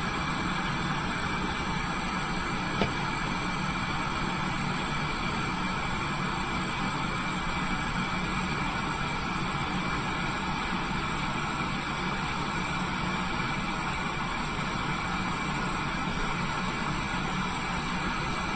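Steady rushing noise of a lampworking bench torch flame burning, with a steady hum underneath and a single light click about three seconds in.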